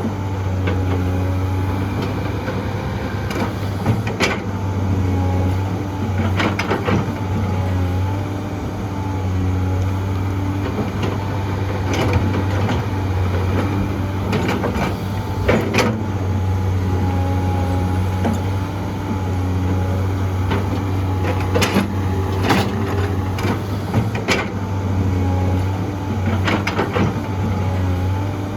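A heavy diesel excavator running under load, with a steady low engine drone and a wavering higher whine as the hydraulics work. Sharp knocks and clanks come at irregular moments, about eight in all.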